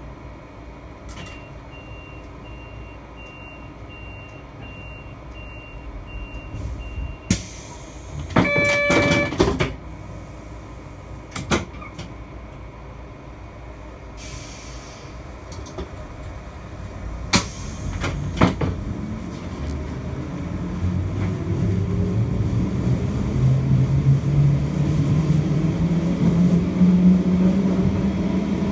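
Passenger train standing at a platform, with a faint repeated beeping, a short pitched signal tone, knocks and clicks, and a hiss of air. About twenty seconds in it pulls away, and a low drone rises steadily in pitch and loudness as it picks up speed.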